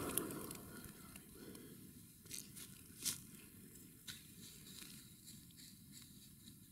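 The echo of a .22 Long Rifle shot from a Ruger 10/22 fading out over the first half second, then faint scattered clicks and rustles, the loudest about three seconds in.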